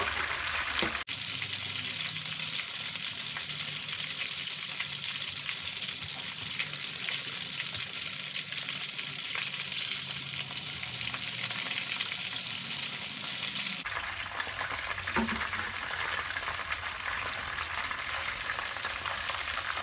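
Marinated chicken pieces frying in hot oil in a pan: a steady sizzle with fine crackling. Its tone shifts abruptly twice, about a second in and again after about fourteen seconds.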